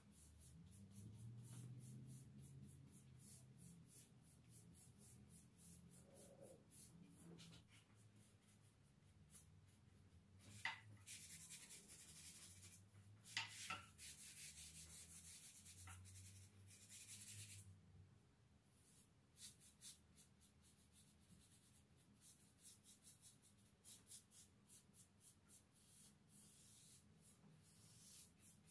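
Faint paintbrush strokes brushing paint onto a wooden handrail: many short rapid scratchy strokes, with two longer sweeps in the middle and a couple of sharp ticks of the brush or handle against the wood.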